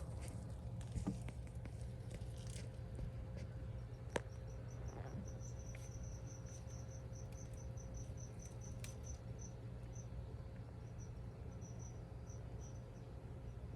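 A cricket chirping in short, quick pulses, about four or five a second, starting about five seconds in and thinning out later, over a steady low hum. A few sharp clicks come earlier, the clearest about four seconds in.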